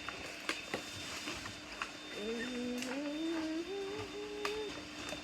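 A man humming a short tune in held notes that climb step by step, starting about two seconds in, with a few light clicks before and under it.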